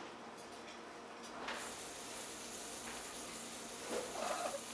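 Faint steady hiss of butter warming in a small Teflon skillet over a lit gas burner, coming in about a second and a half in.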